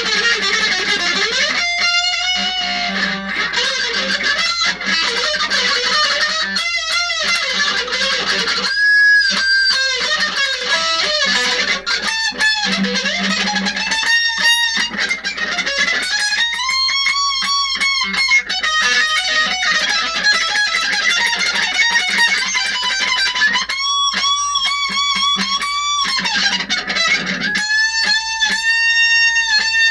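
Electric guitar playing an improvised lead solo: fast runs broken by long held notes that waver with vibrato, the longest at about 9, 17, 24 and 28 seconds in.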